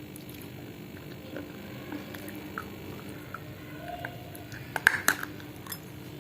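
Close-up chewing and crunching of dry edible clay: scattered small crackles, then a burst of sharp, loud crunches about five seconds in.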